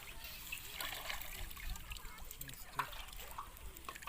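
Shallow water trickling and splashing, with a few small clicks.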